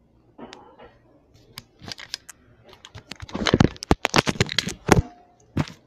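Handling noise: a quick, irregular run of clicks, taps and knocks, thickest in the second half, with a last single knock near the end.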